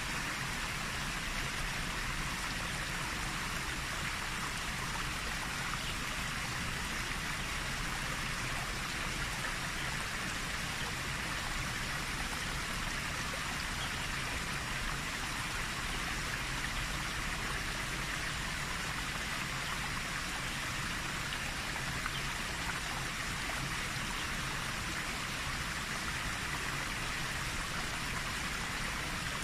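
Steady rushing noise, even and unbroken, with no speech or music.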